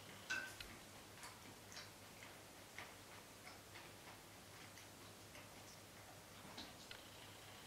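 Faint, scattered clicks and clinks of eating: chopsticks against a hot-pot and a cat eating wet food from its bowl. One sharper clink about a third of a second in.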